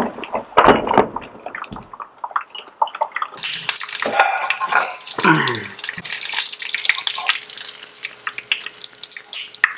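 Breaded fish pieces frying in a pan of oil, sizzling and crackling, with tongs clicking against the pan as pieces are lifted out. About three and a half seconds in, the sizzle turns into a fuller, denser hiss.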